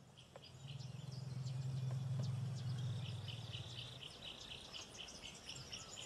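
Forest ambience at dusk: insects and birds chirping, with an insect pulsing about three times a second from halfway on. Under it runs a low steady rumble that fades out about four seconds in.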